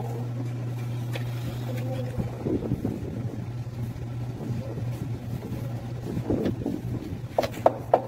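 Metal parts and hand tools handled on top of an engine: rustling and knocking, then three sharp metallic clinks near the end, over a steady low hum.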